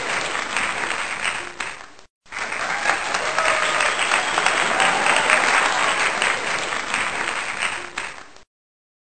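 Crowd applauding, a dense steady clapping that breaks off for a moment about two seconds in, resumes, and fades out shortly before the end.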